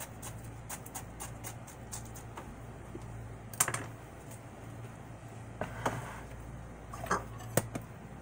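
Kitchen knife tip chopping into the flesh of a halved pineapple, quick light clicks about four or five a second, stopping about a second in. After that come a few louder knocks, the sharpest about three and a half seconds in, as the knife is set down on the cutting board and the pitcher is moved.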